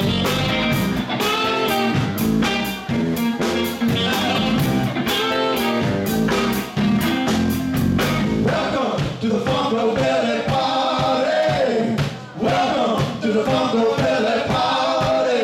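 Live band playing: electric guitar and drum kit with a steady beat, and a lead melody line that slides and bends in pitch through the second half.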